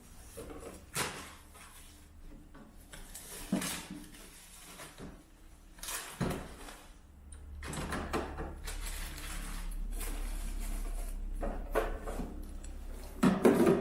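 Scattered clunks, knocks and rustles of a boxed coffee machine and its packaging being handled and set down. A low steady hum joins in about halfway through.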